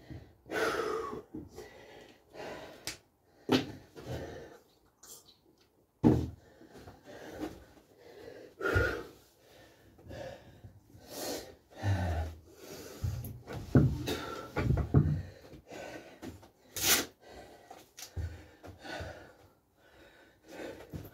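A man's heavy, irregular breathing and wheezing gasps from exertion deep into a 100-rep bodyweight workout, with a few dull thumps.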